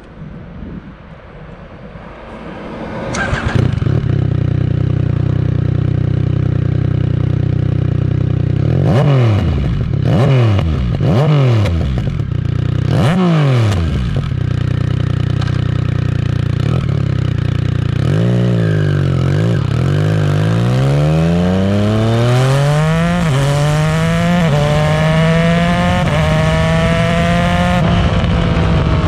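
Yamaha Tracer 900 GT's inline three-cylinder engine through a Roadsitalia Projsix titanium full exhaust with non-catalysed headers and the dB killer fitted. It starts about three seconds in and idles, then is blipped four times. It pulls away and accelerates up through the gears, the pitch climbing and dropping back at each shift.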